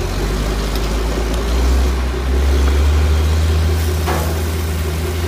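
Diesel engine of a large water tanker truck running steadily at low revs, a constant low drone.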